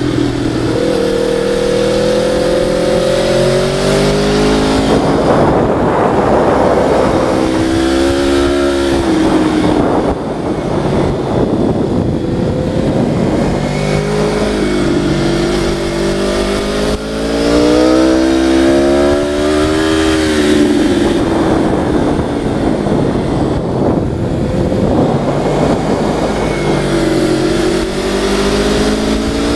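Vehicle engine heard from a helmet-mounted camera, its pitch rising and falling over and over as it speeds up and slows down.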